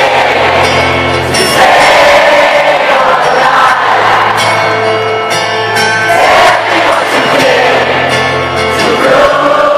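Live acoustic rock performance heard from among the audience: a sung melody with long held notes over steady instrumental accompaniment, with the crowd's voices singing along.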